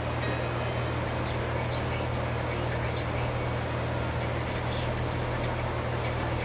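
Steady low hum, with faint light metallic ticks of a pick working the pin stack of a padlock under tension.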